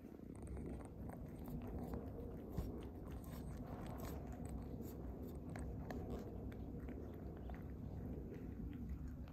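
A cat licking and chewing bits of tuna off a plate close to the microphone: a quick run of wet smacks and small tongue clicks, with one sharper click about two and a half seconds in.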